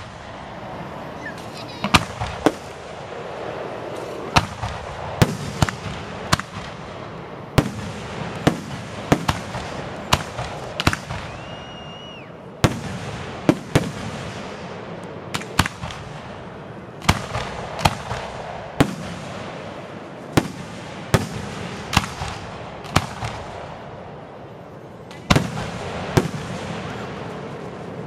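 Aerial firework shells bursting in a rapid series of sharp bangs, one to two a second, each trailing off briefly. A short high whistle comes near the middle, and after a brief lull near the end one loud bang starts the series again.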